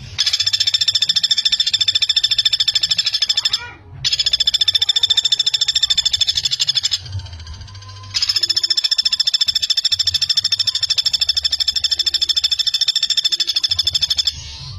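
Common flameback woodpecker (pelatuk bawang) giving long, fast rattling trills, in three runs broken by short pauses about four and seven seconds in.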